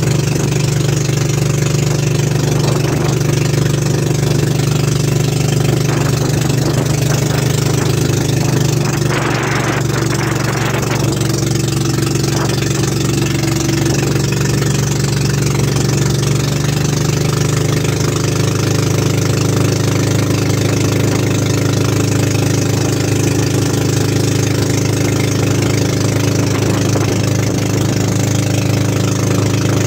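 Motorized bangka's engine running steadily as the outrigger boat cruises, a constant drone whose note shifts slightly about halfway through.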